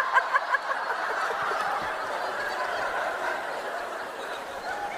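Audience laughing: a few loud rhythmic bursts of laughter at first, then the laughter of the crowd that slowly dies down.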